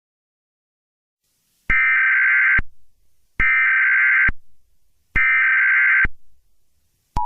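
Emergency Alert System SAME header: three identical bursts of warbling digital data tones, each under a second long, starting about a second and a half in. Near the end the steady two-tone EAS attention signal begins, announcing an emergency alert.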